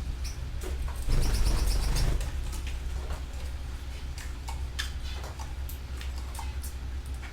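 Canaries chirping and calling in an aviary, many short high notes overlapping. About a second in there is a louder rustle lasting about a second.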